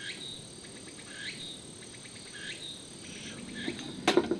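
Evening woodland insects chirring steadily, with a short rising chirp repeating about every second and a quarter. A sharp knock comes near the end.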